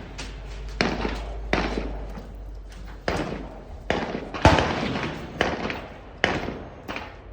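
Rifle gunfire: about ten sharp reports in quick, irregular succession, often less than a second apart, each dying away briefly. The loudest comes about four and a half seconds in.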